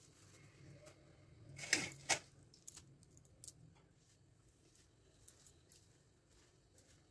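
Quiet kitchen handling sounds: two sharp clicks close together about two seconds in, then a few faint ticks.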